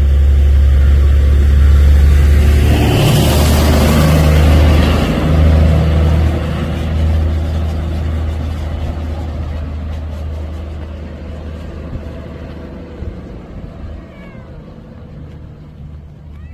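Danubi tourist road train passing close by: a loud low engine rumble with a rush of noise a few seconds in, then fading away. A cat meows a couple of times near the end.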